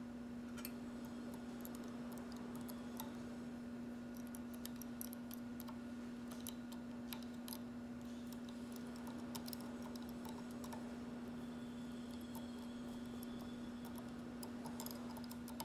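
Faint scattered clicks and light taps of metal parts being handled as a jaw-style shaft coupling is fitted between a pump and an electric motor, over a steady low hum.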